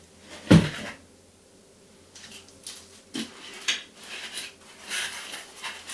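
Unpacking noises: a single knock about half a second in, then scattered rustles, scrapes and clicks of cardboard and plastic packaging being handled, getting busier near the end.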